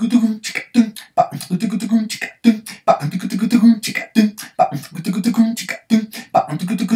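A cappella vocal percussion playing a merengue groove: the tambora imitated with low 'tucu tucu… pa' syllables and the güiro with hissing 'chichi' strokes, the two parts together. The pattern repeats about every 1.7 seconds.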